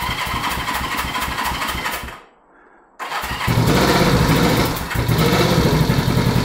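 1970 Honda CB350's parallel-twin engine turned over by its electric starter in an even pulsing rhythm. The cranking stops about two seconds in, starts again a second later, and the engine catches and runs steadily on choke: a cold start.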